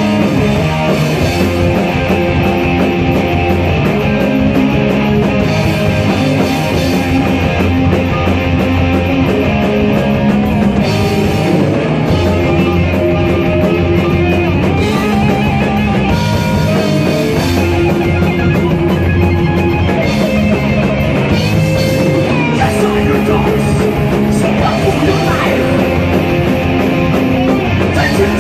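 Rock band playing loud heavy rock live: two electric guitars and a Pearl drum kit, without vocals.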